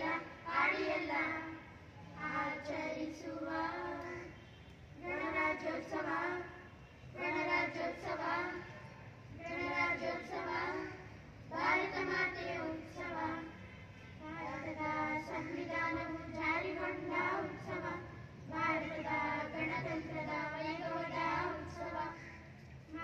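A small group of children singing together into a microphone, in sung phrases of a few seconds each with short breaks between them and no instrumental backing.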